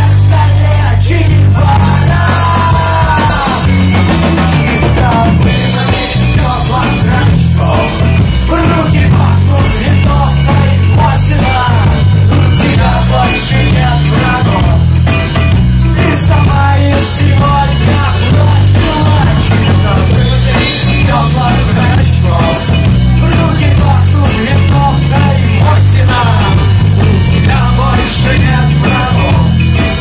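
A rock band playing a song live on stage, loud and continuous, with a heavy bass and singing at times.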